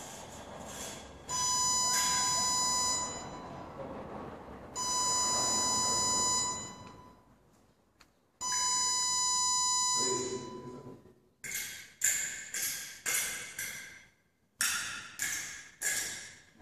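Wireless foil fencing scoring system sounding its touch signal three times, each a steady electronic beep lasting a second or two. From about eleven seconds in come a quick run of about ten short, sharp metallic strikes, each with a brief ring.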